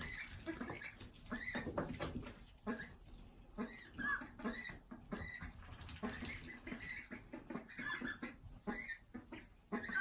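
Young ducks peeping: many short, high calls that rise and fall, repeated irregularly throughout, with small clicks of pecking in between.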